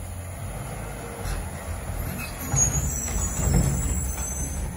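A recycling garbage truck's diesel engine running as the truck drives up, getting louder over the last couple of seconds, with a brief high brake squeal about halfway through.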